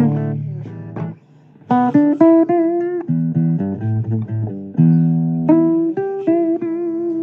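Blues guitar playing an instrumental passage of plucked single notes and chords, each note ringing on. The playing drops away briefly about a second in, then picks up again.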